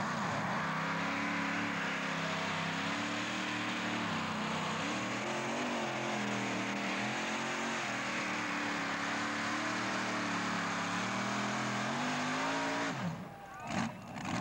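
Supercharged engine of a modified pulling tractor running at full throttle under load on the track, a loud, steady note that wavers slightly in pitch. About thirteen seconds in, the note drops sharply.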